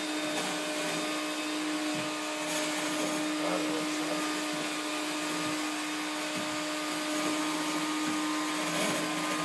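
Steady whir of an electric fan motor: an even hiss over a constant low hum that does not change.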